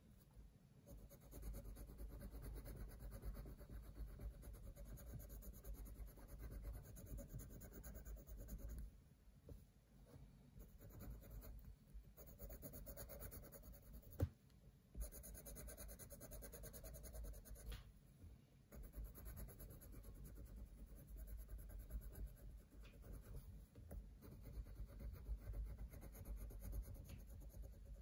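Coloured pencil shading on paper: faint, scratchy strokes going back and forth in runs, broken by short pauses. A single sharp tap about halfway through.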